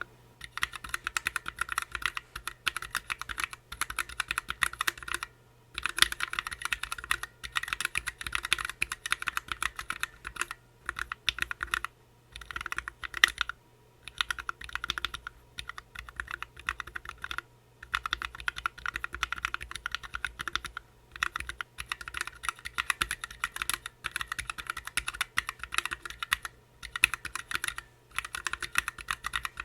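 Typing on a Planck Hi-Pro mechanical keyboard fitted with OA switches and PBT keycaps: fast runs of keystroke clacks in bursts of a few seconds, with short pauses between them.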